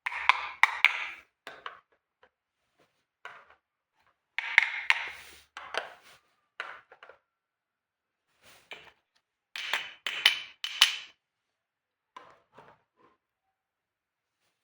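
Small plastic toy kitchen pieces being handled, clicking, tapping and rustling in short bursts with silent gaps between them, about seven times.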